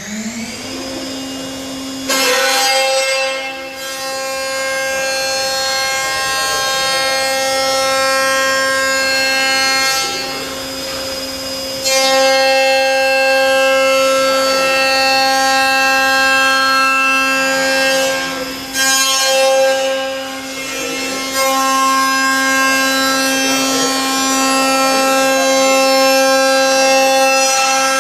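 CNC machining center's milling spindle running at a steady high pitch while its end mill cuts a hollow metal extrusion profile. The cutting sound is a loud whine with many overtones that sets in about two seconds in and breaks off briefly several times before picking up again.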